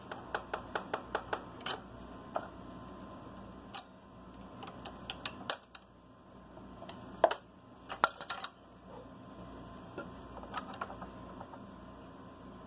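Light, sharp clicks and taps from handling a scroll saw blade and a pine workpiece on the saw table: a quick run of clicks at the start and another louder cluster about seven seconds in, over a low steady hum.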